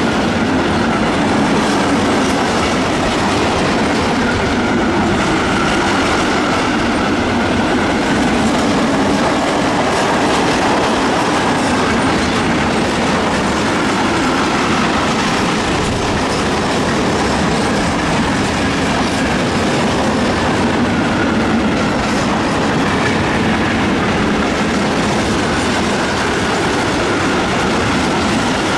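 Long train of loaded open-top freight wagons rolling past at speed on jointed track: a steady rumble of wheels with clickety-clack over the rail joints and a faint wavering whine from the wheels.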